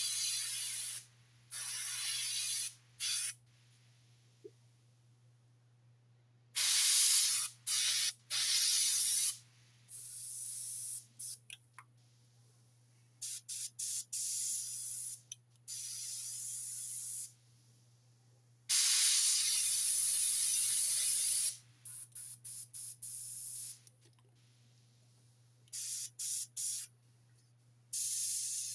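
Airbrush spraying paint in repeated bursts of hiss as the trigger is pressed and released, some bursts a second or two long, others short quick stutters. A steady low hum runs underneath.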